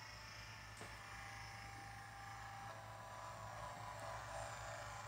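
Faint steady low hum with a faint held higher tone, and no distinct events.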